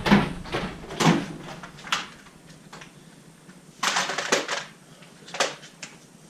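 Irregular clinks and knocks of metal hand tools and engine parts being handled, with a quick run of clatter about four seconds in.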